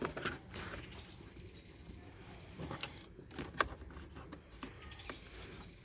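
Faint handling noises and a few light plastic clicks, the sharpest two close together about three and a half seconds in, as a hand fits a piece of a car's plastic tailgate trim back into place.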